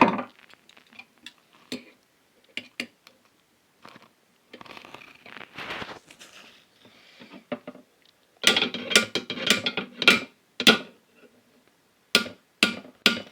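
Small hammer tapping on needle-nose pliers to knock a stuck part off a subwoofer. It starts with scattered light clicks and some scraping, then a quick run of sharp taps from about two-thirds of the way in, and a few more taps near the end.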